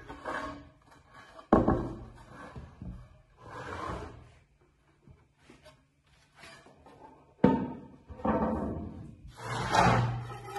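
Thin wooden guitar plates handled on a wooden workbench: two sharp wooden knocks, about a second and a half in and again about seven seconds in, as boards are set down. Each is followed by wood sliding and scraping over the bench.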